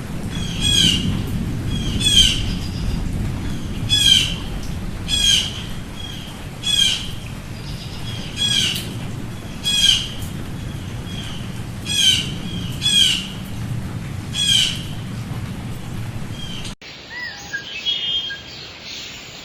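A bird giving a short, harsh call over and over, about every second and a half, over a steady low rumble. Near the end this cuts off abruptly and gives way to quieter, fainter chirping.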